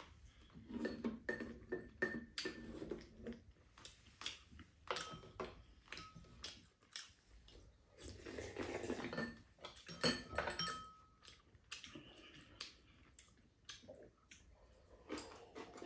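Eating at the table: spoons and chopsticks clicking and clinking against ceramic bowls, with the soft slurping of soup being drunk from a bowl.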